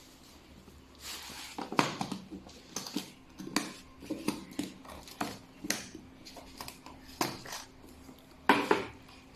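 Electric chiropractic adjusting gun (activator) firing its stylus: a series of sharp clicks at irregular spacing, about one to two a second, over a faint steady hum, with the loudest clicks near the end.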